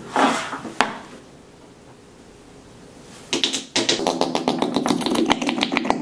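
Flarp noise putty being pushed down with a finger in its plastic tub, letting out a rapid, buzzing fart-like noise. It starts about three seconds in, breaks off briefly, then runs on.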